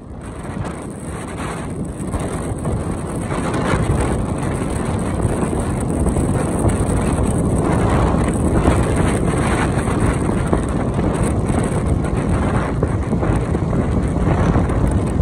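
Wind rushing and buffeting over a phone's microphone while riding a motorbike, with road noise underneath. It builds over the first few seconds as the bike picks up speed, then holds steady.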